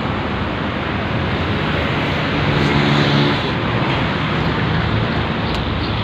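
Steady road traffic noise. A passing vehicle's engine hum stands out over it about two to three seconds in.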